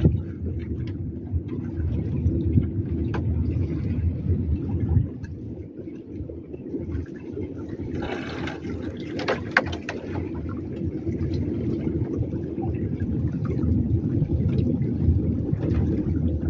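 Wind rumbling and buffeting on the microphone, steady throughout, with a brief rustle about eight seconds in and a few sharp clicks a second later from handling the fishing rod and line.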